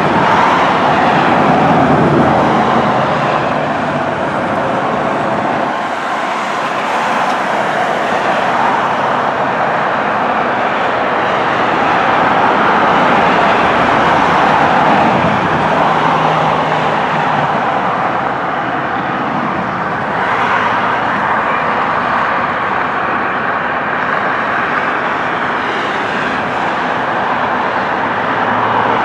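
Steady outdoor rumble and hiss that swells and fades every few seconds, with no train close by.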